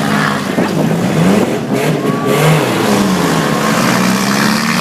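Four-cylinder demolition-derby car engines revving, their pitch rising and falling.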